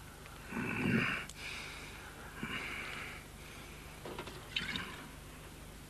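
A man breathing hard through the nose in a few short, breathy snorts, the strongest about a second in, with a few light clicks near the end.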